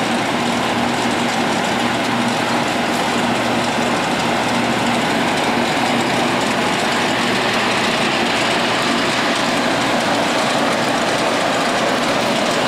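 CS-1 gyratory sifter running steadily, its all-metal stacked screen decks gyrating with flour and coffee beans on them: a steady low motor hum under a dense, even rattling hiss that does not change.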